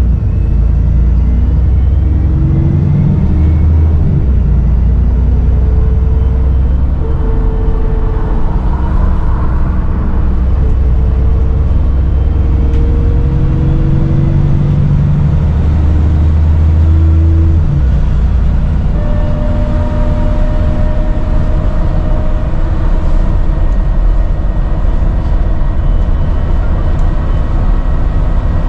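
Dennis Trident 2 / Enviro 400 double-decker bus's diesel engine running under way with a slight turbo whistle. The engine note rises and falls through the gears, with a marked drop about 17 seconds in.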